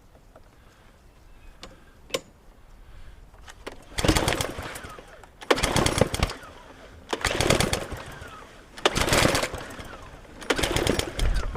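Self-propelled petrol lawn mower engine being pull-started five times in a row, each pull cranking it over briefly without it catching. It won't start because its split primer bulb cannot prime the carburettor.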